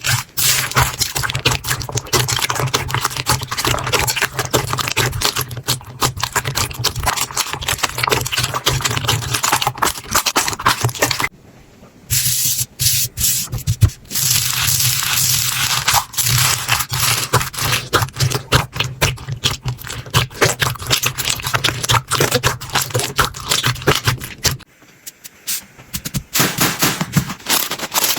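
Slime being squeezed, pressed and stretched by hand, with a dense run of crackling and popping clicks. It stops briefly twice, once near the middle and once near the end.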